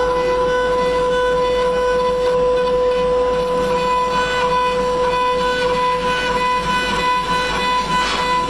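Mini CNC router's high-speed spindle whining at one steady pitch as its cutter engraves a metal plate, with a gritty cutting hiss beneath. A brief sharper scrape comes about eight seconds in.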